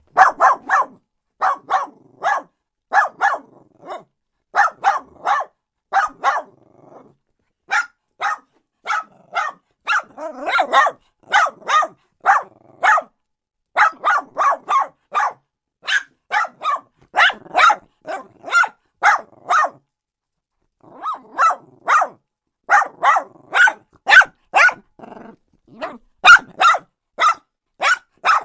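Small dog barking over and over, short sharp barks about two a second in runs broken by brief pauses.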